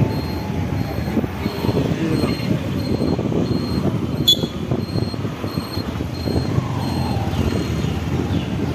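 A small single-cylinder commuter motorcycle (a Bajaj CT 110) running along the street, heard from the rider's seat as engine rumble mixed with wind and road noise. A faint high electronic beep repeats about twice a second throughout, and there is one sharp click about four seconds in.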